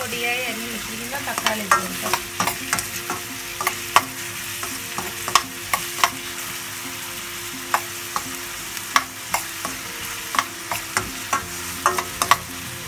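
Chopped onions and curry leaves sizzling in hot oil in a stainless-steel kadai, frying toward golden brown. A spatula stirs them, scraping and clicking irregularly against the pan.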